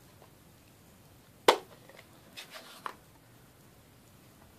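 Plastic craft supplies, ink pad cases among them, handled on a desktop: one sharp click about one and a half seconds in, then a few lighter clicks and taps.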